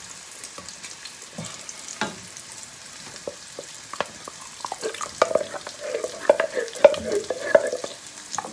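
Sausage sizzling in hot oil in a frying pan, a steady hiss, with clicks and scraping of utensils and cookware that grow busier in the second half.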